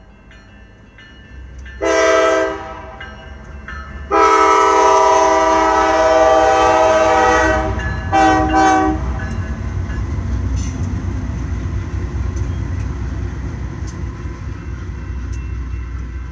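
Diesel freight locomotive's multi-chime air horn blowing for a grade crossing: a short blast, a long blast of about three and a half seconds, then another short blast. After it, the train's steady low rumble and wheels on the rails go on.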